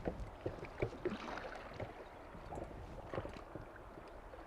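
A drifting boat on a river: water moving along the hull, with scattered light knocks from the boat.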